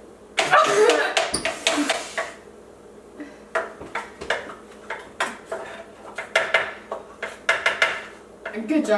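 Metal spoon clinking and scraping against a stainless steel mixing bowl and a metal muffin tin as cupcake batter is spooned into paper liners: a dense run of clatter in the first two seconds, then scattered single clinks.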